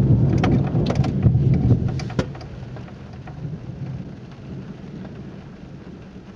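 Thunder rumbling low and loud, then dying away over the last four seconds, over steady rain. A few sharp raindrop ticks fall in the first two seconds.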